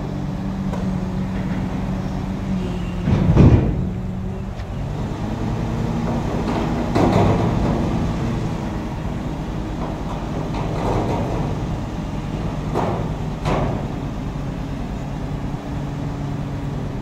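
Heavy diesel engines idling steadily, with a loud short burst about three seconds in and a few weaker ones later.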